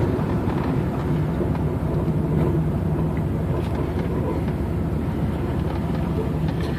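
1994 Trans Am's LT1 5.7-litre V8 running at a steady engine speed through a Flowmaster cat-back exhaust with a Spintech muffler, with no revving.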